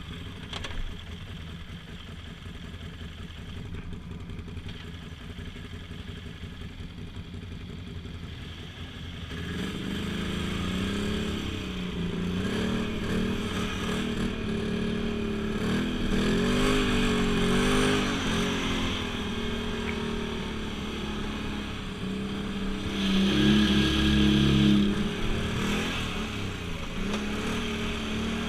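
ATV engine running low and steady, then from about nine seconds in working harder, its pitch rising and falling with the throttle, loudest a few seconds before the end.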